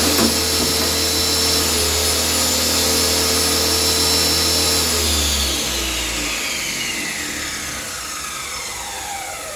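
Circular saw running steadily at the end of a cut through a 4×8 sheet, then switched off about five seconds in, its motor whine falling in pitch as the blade winds down.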